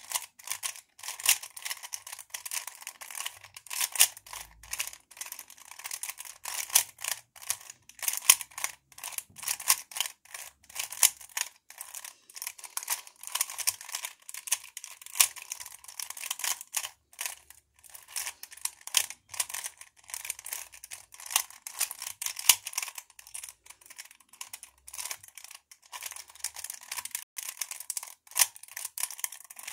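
Rapid, irregular plastic clicking and clacking of a 3x3 Rubik's cube as its layers are turned quickly, one turn after another, while it is being solved.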